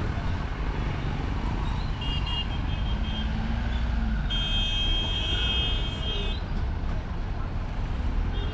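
Motorcycles, scooters and a jeep crossing the railway tracks in a steady engine and tyre rumble. A high-pitched horn sounds about two seconds in, then a longer, louder horn blast follows from about four to six seconds.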